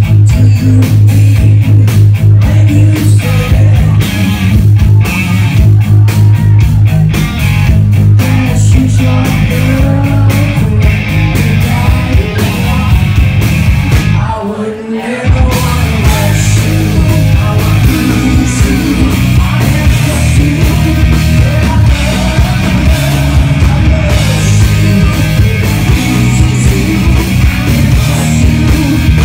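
Live rock band playing loud: a woman singing over electric guitar and drums. About halfway through the band drops away for about a second, then comes back in full.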